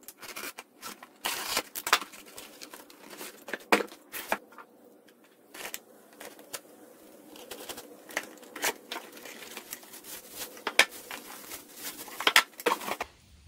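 A cardboard box being cut open and unpacked: irregular rustling and tearing of cardboard and tape, then plastic bags crinkling as wheels are pulled out of them, with sharp clicks and knocks on a wooden bench.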